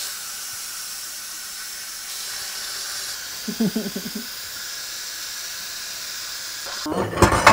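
Instant Pot electric pressure cooker venting steam through its pressure-release valve in a steady hiss: a quick release of the built-up pressure at the end of the cooking cycle. The hiss cuts off near the end, followed by a few knocks.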